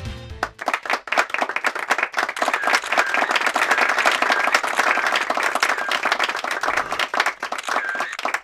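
Audience applauding, a dense clapping that starts about half a second in as the music cuts off.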